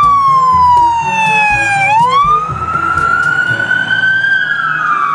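Police car siren wailing in a slow cycle. The pitch falls over about two seconds, climbs back up, then starts falling again near the end.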